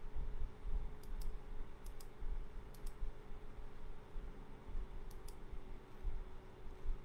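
Sharp clicks in quick pairs, four pairs in all, from someone clicking at a computer, over a steady low hum.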